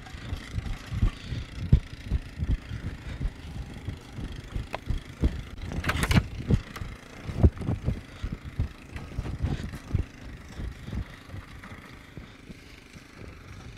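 A four-wheeler's engine runs steadily as it tows a roping dummy through arena dirt, under many irregular low thumps and bumps. About six seconds in there is a brief, loud scraping rustle.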